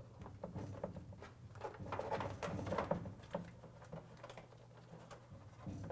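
Foil-faced butyl sound-deadening sheet (Dynamat) being handled and pressed by hand against a car's inner roof panel: irregular crinkling, rustling and light taps. A low steady hum sits underneath.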